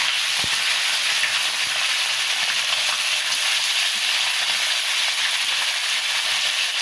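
Pieces of turkey meat sizzling as they fry in a hot iron wok, a steady hiss, with one light knock about half a second in.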